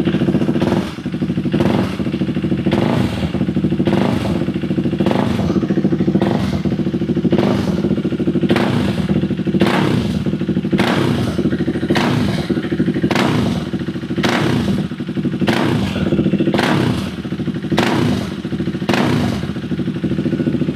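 KTM Duke 390's single-cylinder engine running steadily at idle, with a sharper pulse about once a second. The engine is keeping running without stalling now that its stuck fuel pump is working again.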